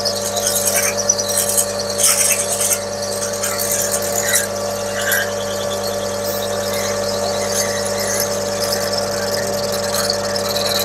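Metal lathe running with a steady motor hum while a 12 mm twist drill in the tailstock chuck bores deep into the spinning axle pump body. Scratchy cutting noise comes and goes over the hum, strongest in the first few seconds.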